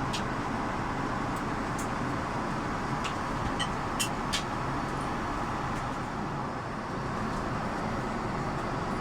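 Steady rushing cabin noise of an Airbus A330-300 airliner in flight, descending, with a few faint clicks about halfway through.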